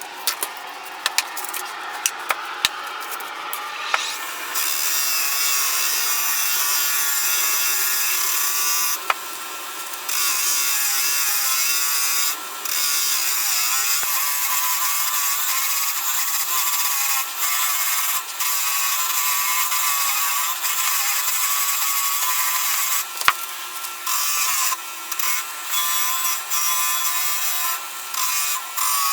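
A power tool running under load, its pitch wavering as it works the material, with several short breaks. A few scattered clicks come before it starts, about four seconds in.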